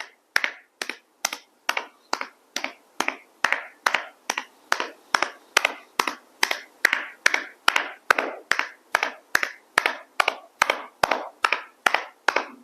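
Steady, even percussion-massage tapping with a hand on a person's body over the sitting bone, about two to three light taps a second.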